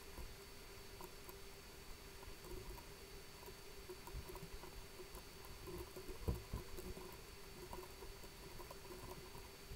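Faint, scattered computer mouse and keyboard clicks over a low, steady hum, with a soft knock about six seconds in.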